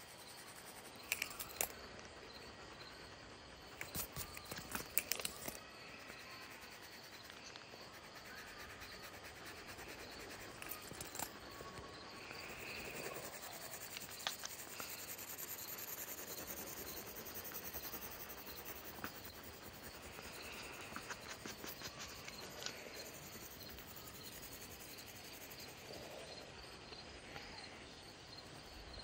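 Graphite pencil shading on paper: a soft, steady scratching of the lead against the sheet, with a faint high rhythmic ticking and a few sharp taps about one and five seconds in.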